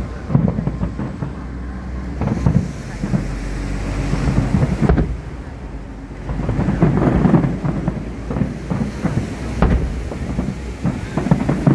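Aerial fireworks bursting: a run of deep booms and crackles, several coming in quick clusters, with the densest volley a little past the middle.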